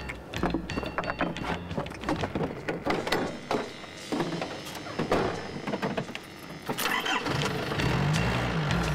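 Knocks and clatter of tools and a pickup truck's door being handled, then the pickup's engine starting about seven seconds in and running.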